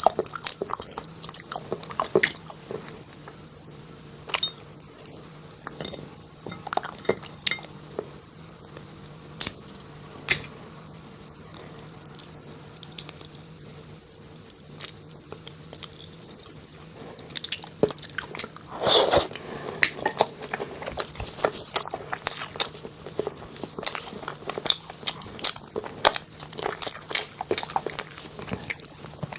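Close-miked eating: irregular bites, crunches and wet chewing clicks, with a louder, denser burst of chewing about two-thirds of the way through. A faint steady low hum runs underneath.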